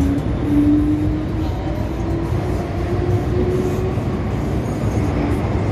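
MTR M-Train electric multiple unit running, a steady rumble of wheels and running gear with a faint motor tone that slowly rises in pitch over the first few seconds as the train picks up speed.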